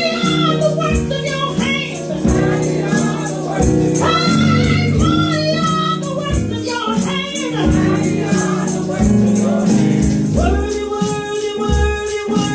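Worship music: voices singing over sustained keyboard or bass tones, with a tambourine shaken in a steady rhythm.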